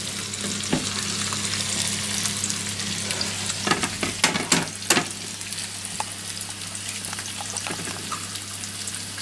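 Eggs frying in a pan, a steady sizzle, with a few sharp knocks about four seconds in.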